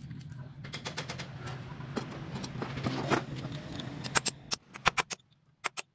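Sharp metallic clicks of a hand ratchet wrench working the hub bolts on a truck's wheel hub, coming in short irregular clusters. A low steady hum runs underneath and fades out a little after four seconds in.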